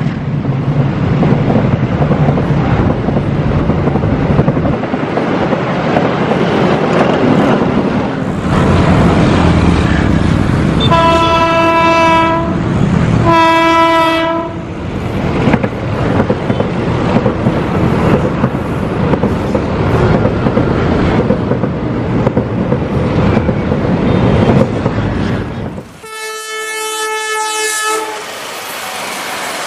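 Train running with continuous wheel and track noise. Its horn gives two short blasts about halfway through, and a horn of a different pitch sounds for about two seconds near the end.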